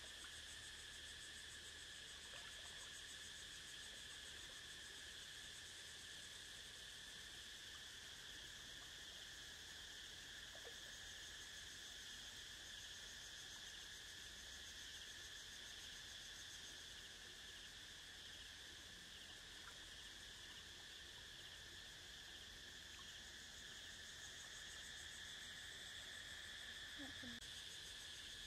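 Faint, steady chorus of insects, an unbroken high-pitched trill.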